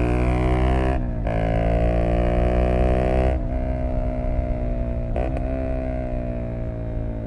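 Zontes U125's single-cylinder engine with a Black Widow aftermarket exhaust, running under load on the move. The pitch climbs slightly after a brief break about a second in, drops at about three and a half seconds, and then winds slowly down, with one more short break near five seconds.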